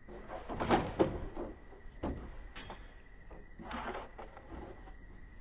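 A dog's claws scrabbling and knocking against a wooden bench as it clambers over the backrest. The loudest cluster of knocks comes about a second in, with more near two and four seconds.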